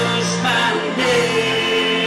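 Church worship team performing a gospel song: singers holding notes over a band.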